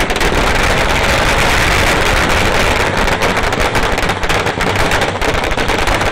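A long string of firecrackers going off in a rapid, unbroken run of cracks and bangs.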